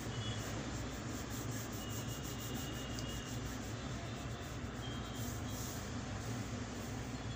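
Pencil scratching on paper in quick repeated drawing strokes, which stop about five and a half seconds in.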